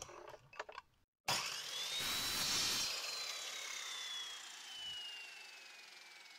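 Ryobi sliding mitre saw starting about a second in with a rising whine and cutting through a spruce board. The blade then winds down with a slowly falling whine. A few light knocks of handling come before it starts.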